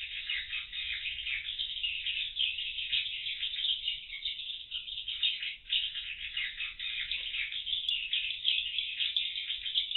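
Swiftlets twittering in a dense, unbroken chorus of chirps, heard through a CCTV microphone that cuts off the higher sounds.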